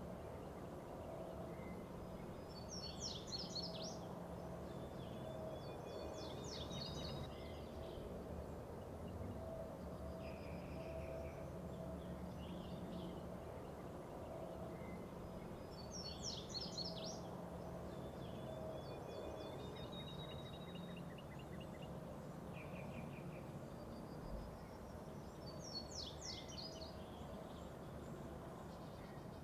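Outdoor bird song over a steady low background hum. One bird sings the same short, rapid, buzzy phrase several times, and fainter chirps and whistles come between its songs.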